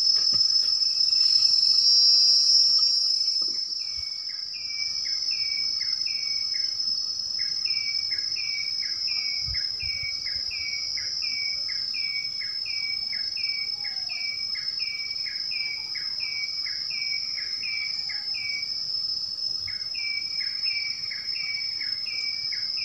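Tropical insects, crickets or cicadas, keeping up a steady high-pitched drone. From about three seconds in, a short falling call repeats about twice a second, pausing briefly near the end.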